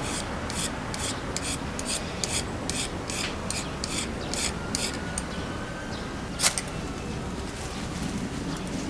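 A run of quick, rasping scrape strokes, about three a second, that stops about five seconds in, followed by one sharper scrape a little later.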